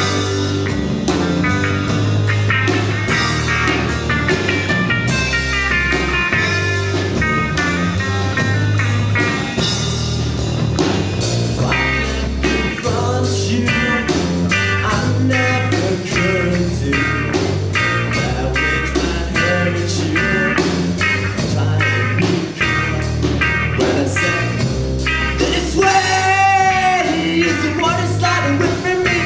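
A live rock band playing a song, with drums keeping a steady beat under bass and electric guitar.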